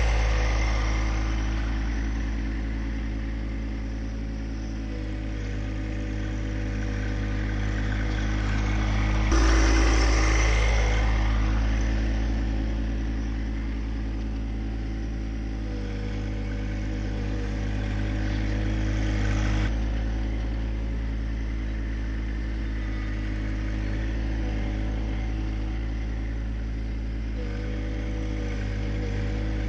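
Engine of a John Deere 2025R compact tractor, a three-cylinder diesel, running steadily as it pulls a rock rake across dirt. Its level swells and fades, with a sudden jump about nine seconds in.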